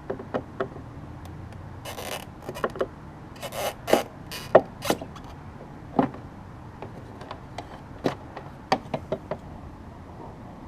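Irregular clicks, taps and short rustles from hands working on wiring and plastic trim inside a car's rear door, with a few louder knocks in the first half and a quick cluster of clicks near the end.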